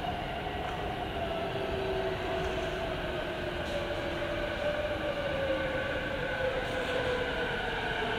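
An electric train approaching and slowing. Its motor whine is several tones that fall slowly in pitch, over a rumble that grows gradually louder.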